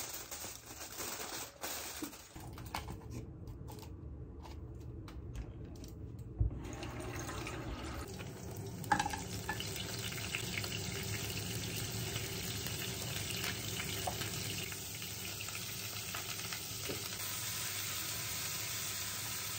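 Kitchen tap running steadily into a sink, growing a little louder as it goes.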